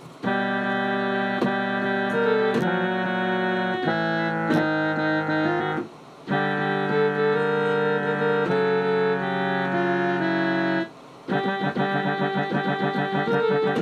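Electronic keyboard playing in its trumpet voice: held chords of synthetic brass, broken by two short pauses about six and eleven seconds in. After the second pause it plays quick repeated notes.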